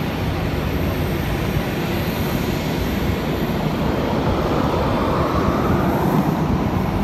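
Steady loud roar on an airport apron: jet aircraft engine noise, growing a little louder in the second half.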